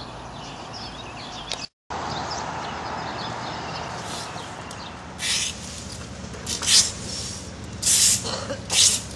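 A rake scraping storm debris across a paved street, about five short scraping strokes starting around halfway through. Birds chirp faintly over steady outdoor background before the raking.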